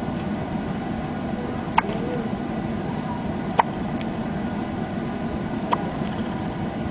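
A baby hiccuping three times, about two seconds apart, each hiccup short and sharp, over a steady background rumble.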